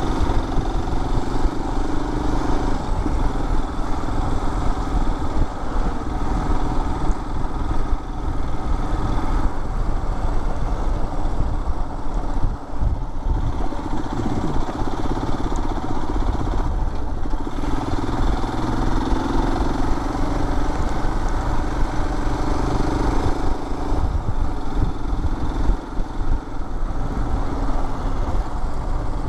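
Motorcycle engine running steadily while riding along, under a continuous rush of road and wind noise.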